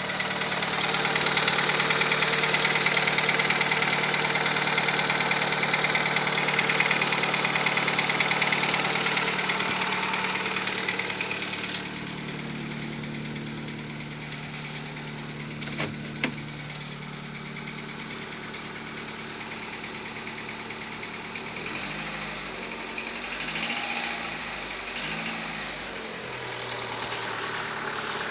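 Volkswagen-group AZD 1.6-litre four-cylinder petrol engine running at idle with a knock whose cause the owner cannot work out. The engine sound drops in level about twelve seconds in, and there is a single sharp click a few seconds later.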